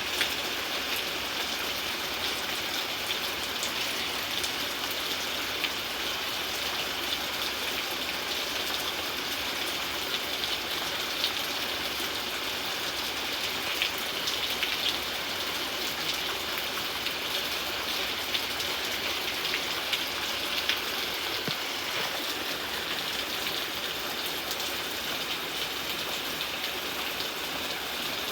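Steady rain falling, an even hiss with many small scattered drop ticks on a hard surface.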